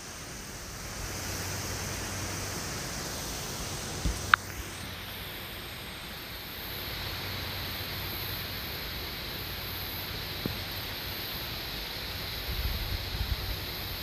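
Steady wind noise blowing over the microphone in high wind, with low buffeting rumbles near the end. A single sharp click comes about four seconds in.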